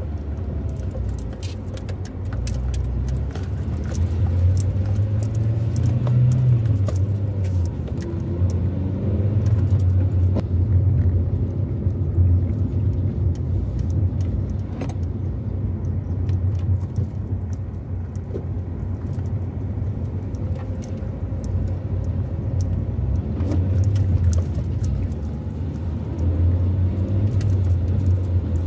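Inside a moving car: steady low engine and road rumble that swells and eases as it drives, with scattered light clicks and rattles throughout.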